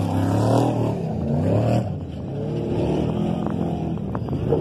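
Trophy truck race engines revving hard, their pitch climbing and falling as the trucks accelerate on the dirt course, with a short sharp knock near the end.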